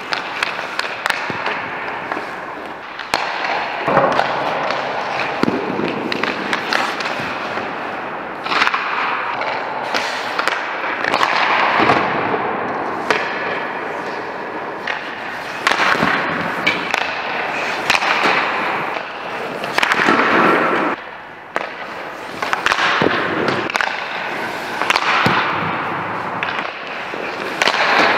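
Ice hockey shooting practice: irregular sharp cracks of pucks struck by sticks and hitting goalie pads, boards and posts, mixed with the hiss and scrape of skate blades digging into the ice.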